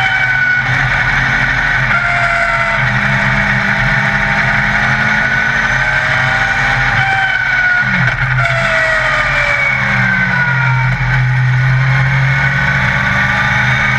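Yamaha XJR1300 inline-four motorcycle engine of a Legend race car, heard from inside the cockpit while lapping under power. The engine note rises and falls several times.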